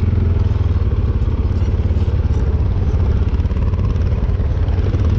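ATV engine running at a steady pace while riding, with a fast even low-pitched pulse.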